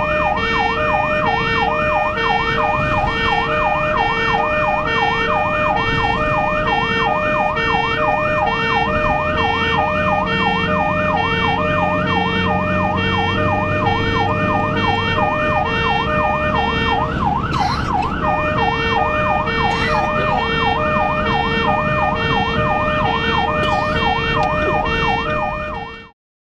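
Ambulance siren sounding a fast, continuous up-and-down warble, heard from inside the ambulance's cab while it drives at speed, with road noise underneath. The sound cuts off abruptly near the end.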